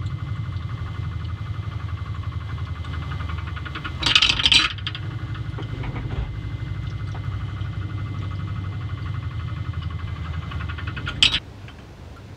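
Magnetic stirrer hotplate running, its stir bar rattling in the glass jar in a steady buzz. There are louder bursts of clattering about four seconds in and again near the end, after which the sound drops suddenly to a faint hiss.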